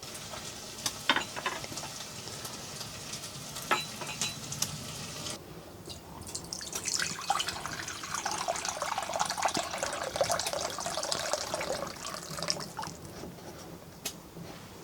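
Water being poured or handled, loudest for several seconds in the middle, with scattered light clicks.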